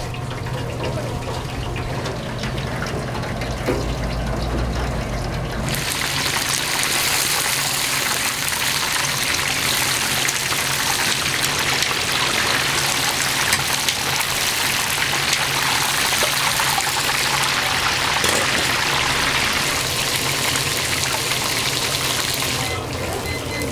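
Water running steadily, like an open tap, over a steady low hum. The water starts suddenly about six seconds in and cuts off suddenly near the end.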